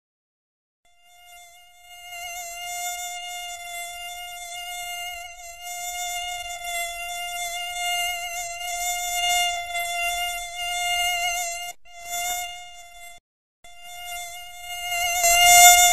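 Mosquito buzzing sound effect: a steady, high, thin whine that swells and fades. It breaks off briefly about twelve seconds in, drops out for a moment just after, and comes back loudest near the end.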